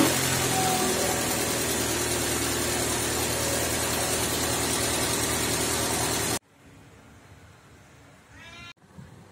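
Car engine idling steadily after start-up, with the radiator flush circulating through the cooling system. It cuts off abruptly about six seconds in, leaving a much quieter stretch with a faint short rising sound and a click near the end.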